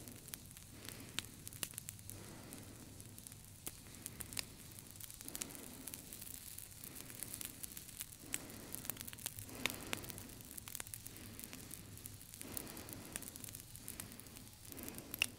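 Crackling, hissing static, like the surface noise of an old record, full of scattered sharp clicks, with soft low swells coming and going every few seconds.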